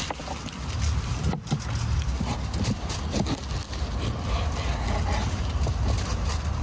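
Large knife cutting lengthwise through a raw carrot on a wooden cutting board: scattered crunching cuts and knocks of the blade on the board. A steady low rumble runs underneath.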